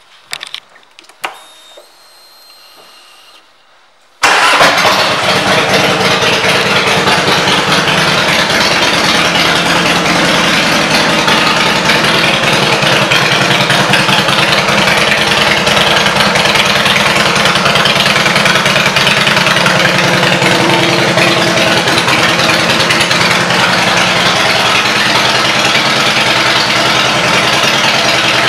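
Harley-Davidson Fat Boy's Twin Cam 88B V-twin running steadily at idle through aftermarket Vance & Hines exhaust pipes. The engine sound comes in suddenly about four seconds in, after a few faint clicks.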